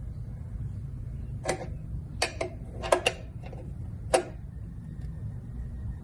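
About seven sharp metallic clicks and clinks of a wrench, most likely on the oil drain plug, irregularly spaced over about three seconds, over a steady low rumble.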